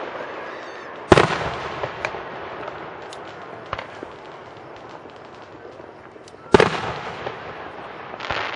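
Aerial firework shells bursting. There is a sharp bang about a second in and another about six and a half seconds in, each trailing off in echo, with a few fainter pops between them and a softer bang near the end.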